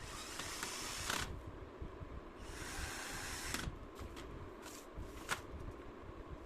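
Handling noises: two stretches of rustling, then a few short sharp clicks.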